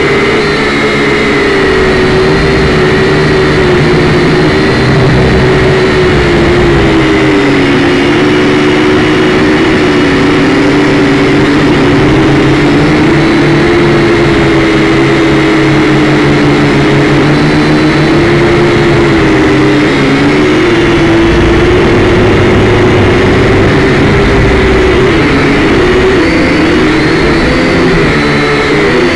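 Syma X5C-1 quadcopter's four small electric motors and propellers whining in flight, heard close up through its onboard camera. The pitch wavers up and down as the motors change speed, swinging more widely near the end as it flies low.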